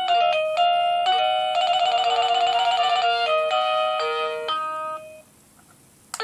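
Dick Smith Y8450 wireless door chime playing one of its electronic tunes: a run of simple beeping notes with a fast warbling trill in the middle, ending about five seconds in. A short click follows near the end.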